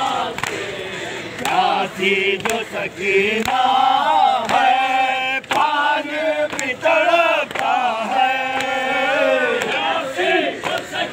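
A crowd of men chanting a noha (Shia lament) together, their voices rising and falling in long sung phrases. Sharp slaps land about twice a second, the beat of matam (chest-beating) kept to the chant.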